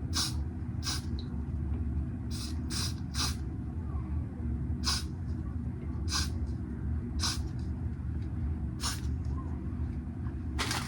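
Aerosol Got2b wig spray hissing in about ten short bursts, a second or so apart and unevenly spaced, over a low steady hum.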